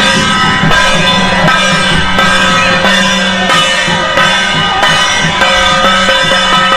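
Music with a steady drum beat under several held pitched notes.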